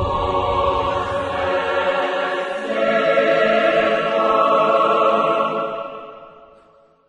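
Choral music: voices holding long sustained chords, swelling about three seconds in and then fading out near the end.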